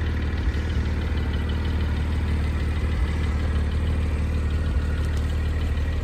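2021 Porsche 718 Spyder's 4.0-litre flat-six idling steadily, with a faint regular ticking over the low engine note.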